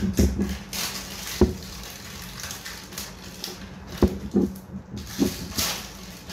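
Clear plastic shrink wrap on a phone box crinkling and tearing as it is pulled off by hand, in irregular crackly bursts. There are three sharp knocks, about one and a half, four and five seconds in.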